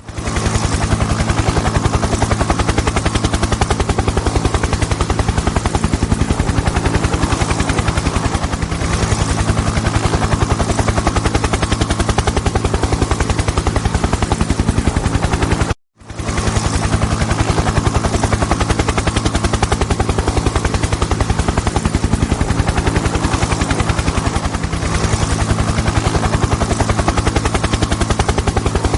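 Helicopter rotor running with a rapid, even chop of the blades over a steady low engine drone. It cuts out for an instant about halfway through, then resumes unchanged.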